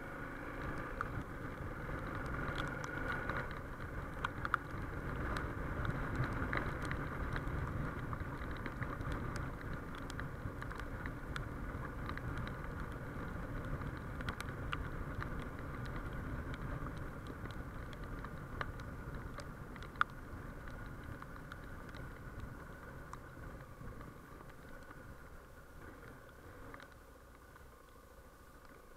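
Suzuki XF650 Freewind's 644 cc single-cylinder engine and road noise while riding through town on a wet road, picked up by a chest-mounted camera's built-in microphone. The sound eases off over the last third as the bike slows down. There are scattered small ticks throughout and one sharp click about 20 s in.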